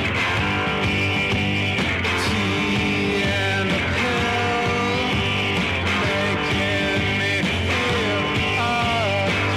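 Psychedelic punk rock song played by a full band, steady and loud throughout, with a few sliding notes about four seconds in and near the end.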